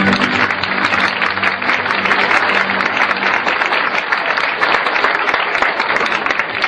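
Audience applauding, a dense, loud patter of many hands clapping, while the last held note of the dance music dies away over the first few seconds.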